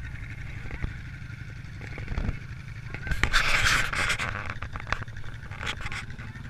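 ATV engine idling steadily. About three seconds in, a loud rustling, scraping burst lasts about a second, followed by a few sharp ticks.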